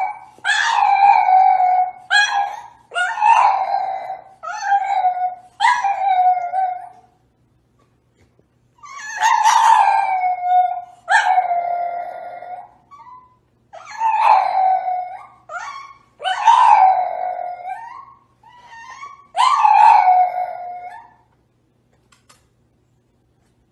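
French bulldog howling: about a dozen drawn-out calls, each sliding down in pitch at its end, in two runs with a pause of about two seconds between them.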